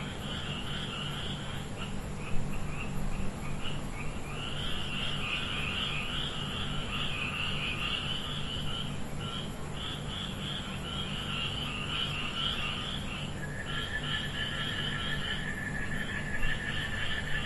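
Night-time chorus of trilling insects, in long high-pitched bursts that stop and start, with a second, steadier high trill joining about three-quarters of the way through; a faint low hum runs underneath, and there is one brief bump a couple of seconds in.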